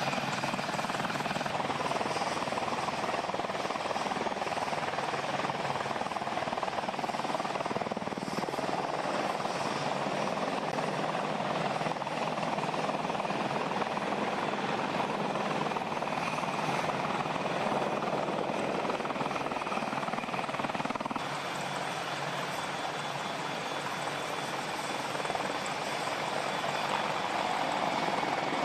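AH-64 Apache attack helicopters running, a steady dense noise of rotors and turbine engines that eases a little about three quarters of the way through.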